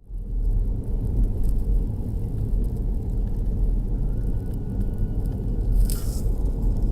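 A motor vehicle running with a steady low rumble, cutting in suddenly at the start, with a brief hiss near the end.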